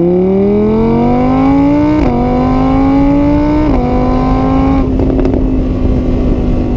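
Car engine accelerating through the gears: its pitch climbs, drops at an upshift about two seconds in and again near four seconds, then holds steady.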